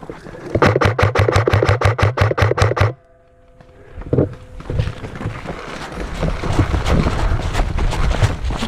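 Electric airsoft rifle, a Krytac Trident Mk2, firing one full-auto burst of about two seconds, around eight shots a second over its motor hum. About a second later a noisy scuffing sound of movement builds up.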